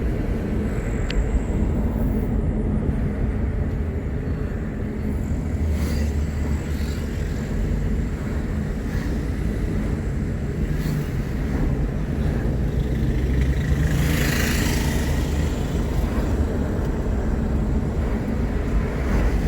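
Steady low rumble of a vehicle driving along a road, engine and tyre noise together. A louder rushing hiss rises and fades about 14 seconds in.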